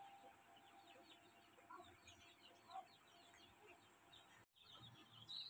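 A flock of three-week-old Sonali chicks peeping faintly: many short, high, falling chirps overlapping, with a few louder calls.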